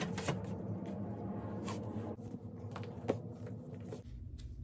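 Books being handled and set onto the shelves of a rolling book cart: a few short knocks and shuffles, the sharpest about three seconds in, over a steady low hum.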